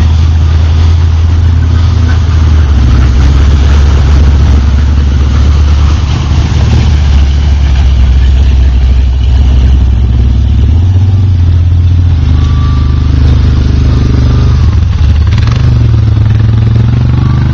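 ATV engine running close by, with a steady low drone. Its pitch shifts up and down a few times as the throttle changes.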